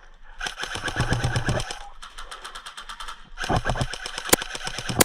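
KWA QRF Mod 1 airsoft electric rifle firing fast full-auto bursts, a rapid even clatter of shots: one long burst starting about half a second in and trailing off, then another from just past three seconds, with one sharper crack near the end.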